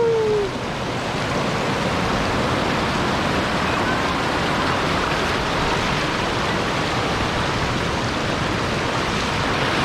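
Rushing water of a rocky mountain stream, a steady, even hiss of water pouring down over stone steps and rocks.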